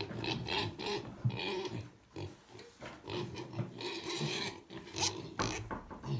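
A group of piglets grunting and calling in irregular bursts, with a short lull about two seconds in.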